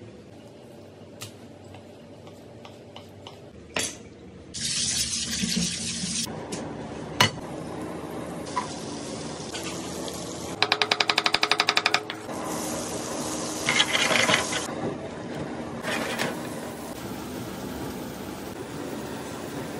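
Faint knife ticks as fish fillets are cut on a plastic board, then from about five seconds in, hot oil sizzling in a frying pan with garlic and then meat pieces in it. A loud burst of rapid, even clicks lasts about a second near the middle.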